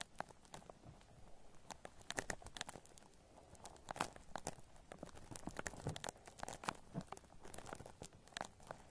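Shaving cream foam squished and worked close to the microphone, making soft, irregular wet crackles and pops, several a second.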